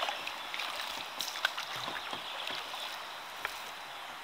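Canoe paddling on a river: paddles dipping and splashing over steady water noise, with a few short, light knocks scattered through.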